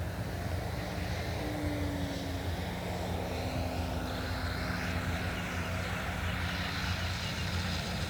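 Radio-controlled model airplane's motor and propeller droning steadily on its landing approach, the pitch sinking slightly.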